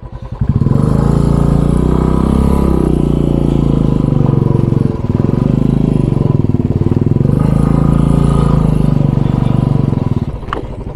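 Royal Enfield single-cylinder motorcycle engine running under load as it climbs a rough dirt track, with its steady pulsing thump. The note dips briefly about halfway and drops away near the end as the bike slows.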